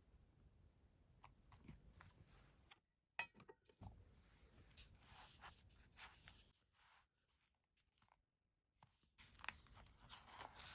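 Faint handling of paper: short rustles and light clicks, with brief dead-silent gaps between them.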